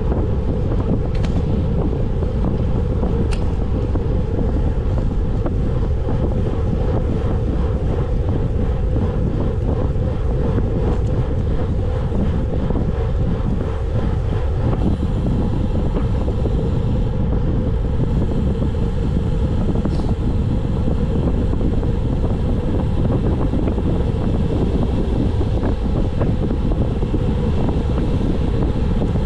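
Wind blowing over a bicycle-mounted camera's microphone while riding, a steady low rumble.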